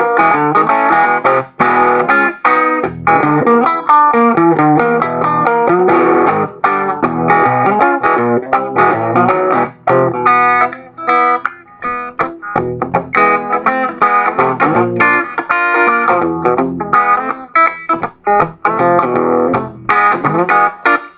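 Electric guitar played in a driving boogie-blues groove: choppy, rhythmic chords and riffs, broken by many short stops between phrases.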